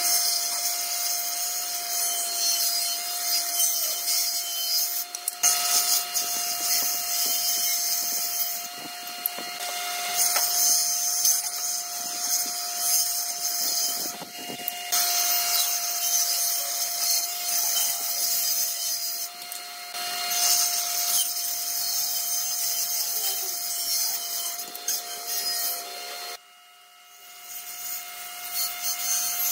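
Table saw of a combination woodworking machine running with a steady whine while its blade rips wooden boards, a hissing sawing noise that comes and goes as each board is fed through. The sound breaks off and resumes abruptly several times, with a short quieter stretch near the end.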